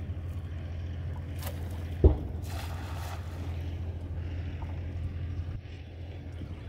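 Wind rumbling on the microphone, with one loud thump about two seconds in and, just after, a short hissing splash as a cast net lands on the water.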